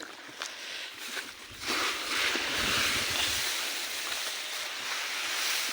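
Steady hiss of wind, which grows louder about two seconds in and then holds.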